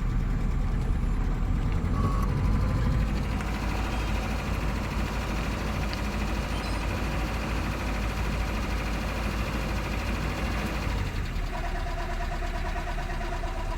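Vehicle engine idling steadily with a low rumble; a faint pulsing whine joins about eleven seconds in.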